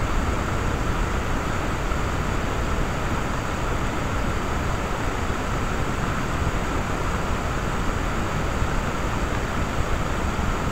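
Steady, even recording hiss with a faint high-pitched tone running through it; no distinct footsteps or rustles stand out.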